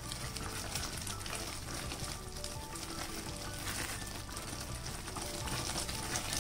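Coconut, sugar and milk mixture bubbling and sizzling steadily in a non-stick pan while it is stirred with a silicone spatula, as it cooks down and thickens toward burfi.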